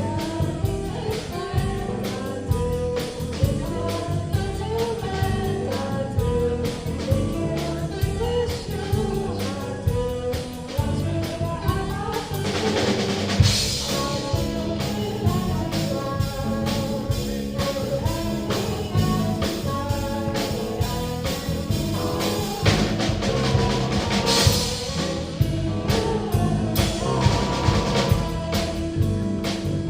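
Live rock band playing a song with drum kit, pitched instruments and singing. Cymbal crashes ring out twice, about halfway through and again later on.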